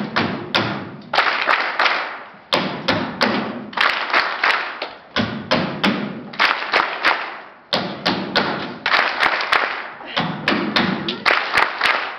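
Rapid hand claps and foot stomps by performers on a stage floor, in quick percussive phrases of a couple of seconds each, broken by short pauses.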